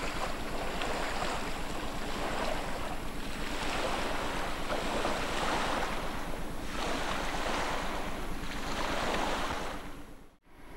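Small waves washing onto a sandy fjord beach, with wind on the microphone, swelling and easing every couple of seconds. The sound cuts out briefly near the end.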